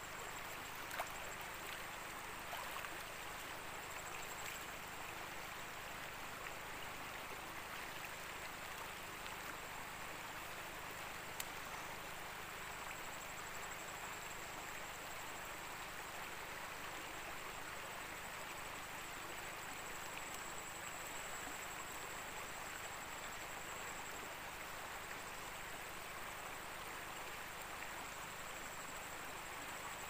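Steady rush of a river flowing over shallow riffles, with two faint clicks: one about a second in and another some ten seconds later.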